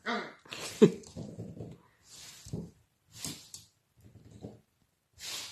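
Shetland sheepdog puppy making short, separate play sounds: a bark at the start, a sharp yip with a falling pitch just under a second in as the loudest, then softer brief sounds.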